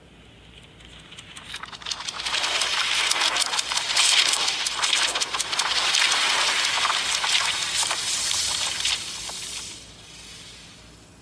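Rapid fluttering of flipping comic-book pages, the page-flip sound effect of the Marvel Studios logo. It builds up over the first two seconds, runs as a dense papery crackle, and fades away about ten seconds in.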